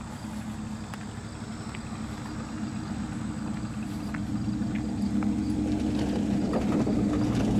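Truck engine running with a steady low drone, growing steadily louder as it approaches.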